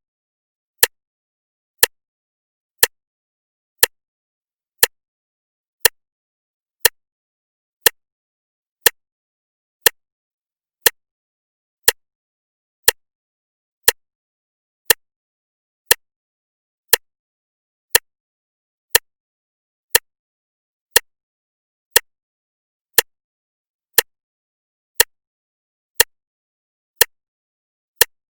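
Clock ticking, one sharp tick each second with silence between the ticks.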